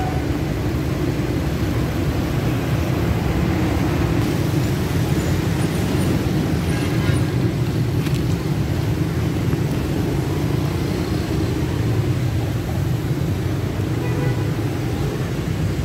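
Steady, even rumble of road traffic, strongest in the low end, with no single event standing out.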